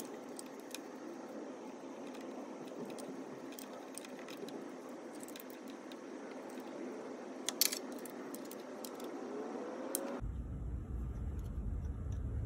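Scattered light metallic clicks and clinks as the new VVT solenoid and its bracket hardware are handled and fitted on the engine, with a sharper cluster of clicks about seven and a half seconds in. From about ten seconds in, a steady low rumble is added.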